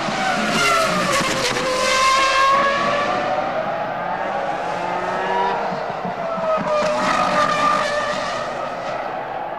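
Ferrari Formula One car's 3.0-litre V10 engine at high revs, its high-pitched scream falling and then climbing again twice as it goes through the corners.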